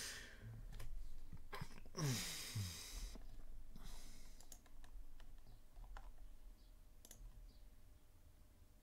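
Sparse clicking at a computer: single clicks a second or more apart, with a breathy sigh about two seconds in.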